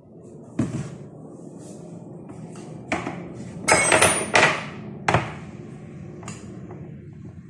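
Kitchen items being handled and set down on a counter: a string of sharp knocks, with a quick run of ringing, glassy clinks about four seconds in, over a steady low hum.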